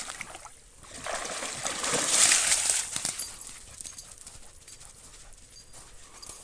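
Water splashing as a dog moves through a creek, swelling to its loudest a little after two seconds in, then dropping to faint trickling and small splashes.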